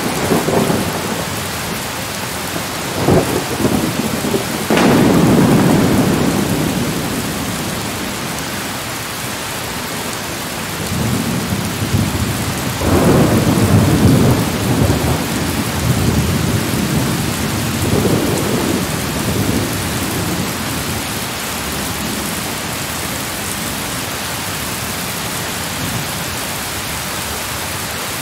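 Steady rain with several rolls of thunder. A sharp crack about five seconds in runs into a long rumble, and further rumbles come around the middle.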